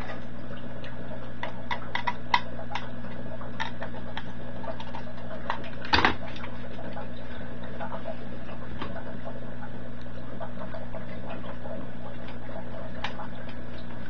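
Scattered light clicks and taps of small parts being handled on a workbench: relay boards, screws and a screwdriver being set into a thin sheet-metal box, with one louder clack about six seconds in. A steady low hum runs underneath.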